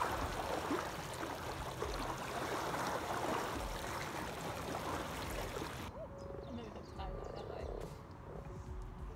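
Volcanic gas, mostly carbon dioxide, bubbling up through a shallow puddle at a mofette, with a crackling, gurgling patter of small bubbles. About six seconds in it gives way to a chorus of frogs croaking in a pond, a low steady purring call.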